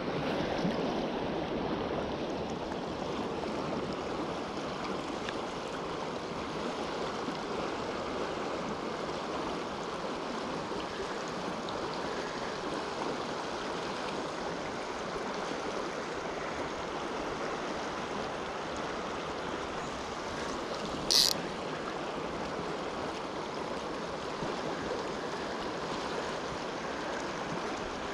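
Fast river riffle rushing steadily past close by. A brief sharp sound cuts in once, about three quarters of the way through.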